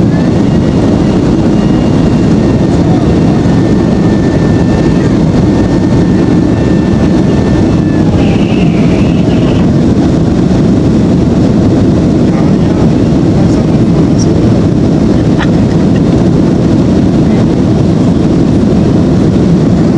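Boeing 767-300ER engine and airflow roar heard inside the passenger cabin during the climb after takeoff, loud and steady. A faint high steady tone sits over it for the first several seconds.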